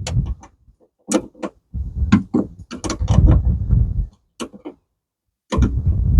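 Irregular clicks, taps and knocks of hand work on metal vehicle parts, with a short silent pause near the end.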